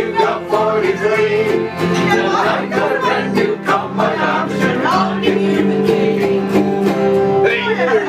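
Amateur group singing along to a strummed ukulele, several voices together on the closing lines of a comic folk song, ending on a long held note.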